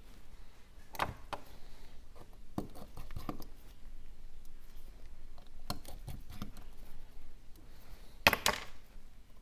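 Scattered light clicks and taps of small repair tools working inside an iPhone 12 while its charging-port flex cable is lifted, with a louder short rasping click near the end.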